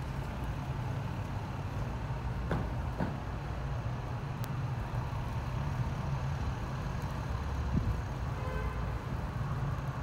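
Street traffic, with a vehicle engine running as a steady low hum, and a few faint clicks.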